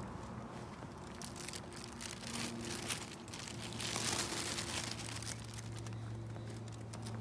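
Footsteps of a person walking along a concrete footpath, with a steady low hum underneath and a brief rush of noise about four seconds in.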